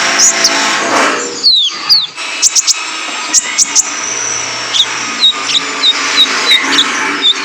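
Male konin (kolibri ninja) singing: a rapid, busy run of sharp high chirps, short sweeping notes and clicks over a steady hiss.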